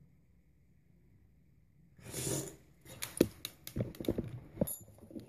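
Near silence, then about two seconds in a breath-like rush, followed by a run of small clicks and rustles from hands fumbling close to the microphone.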